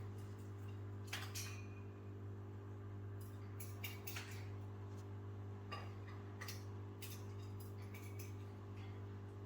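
African grey parrot flicking seed mix out of its feeder bowl with its beak: scattered, irregular clicks and scrapes of beak and seeds against the bowl, over a steady low hum.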